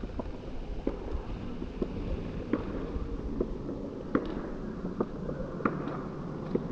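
Skateboard wheels rolling on rough pavement, a steady low rumble with a sharp clack about every 0.8 seconds as the wheels cross joints in the ground.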